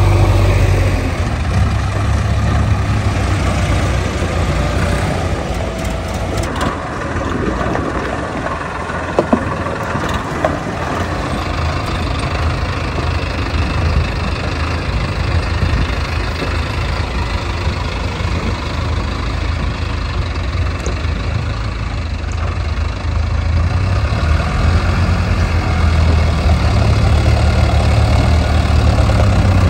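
Heavy diesel engine running steadily, with a deeper, louder drone at the start and again in the last few seconds.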